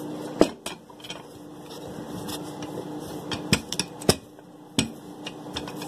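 Rolling pin working dough on a kitchen counter: scattered knocks and taps of the pin against the counter, a few of them sharp, over a faint steady hum.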